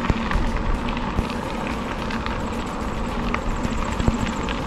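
Bicycle riding noise: tyres rolling along a trail and wind buffeting the action camera's microphone, with scattered light clicks.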